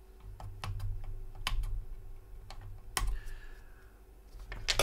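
Flush side cutters snipping through the legs of a shorted 2SB688 output transistor on an amplifier board: a series of sharp snips, the loudest about 3 s in and near the end, with low handling thumps between them.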